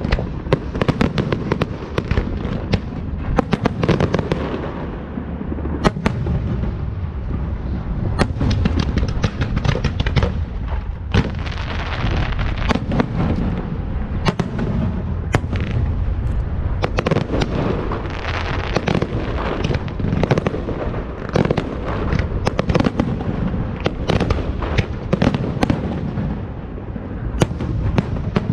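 Fireworks going off without a break: a dense stream of sharp bangs and crackling over a steady low rumble.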